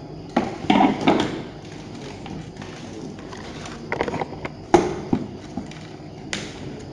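Handling noise from a hard plastic device being picked up, turned and set down on a workbench: a cluster of knocks and clicks in the first second, more about four to five seconds in, and one more near the end.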